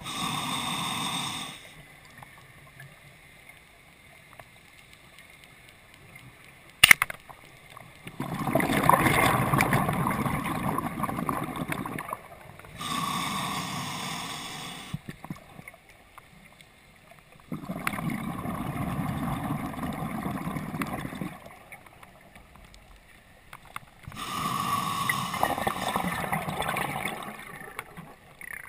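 Diver's breathing heard underwater through the camera housing: a breath cycle every several seconds, with long rushes of exhaled bubbles between quieter gaps. A single sharp snap cuts in about seven seconds in.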